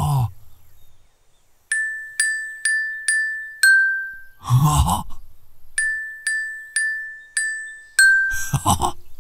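Toy glockenspiel's metal bars struck with a mallet, each note ringing briefly: four strikes on one note, then one lower note, played twice. A man's short vocal sound follows each phrase.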